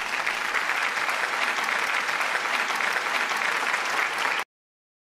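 Applause, many hands clapping at a steady level, cut off abruptly about four and a half seconds in.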